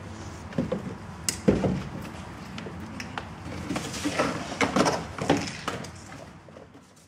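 Scattered knocks, taps and scrapes of light sculpture pieces being handled and set down on a floor, busiest a little past the middle, over a steady low hum; the sound fades out at the end.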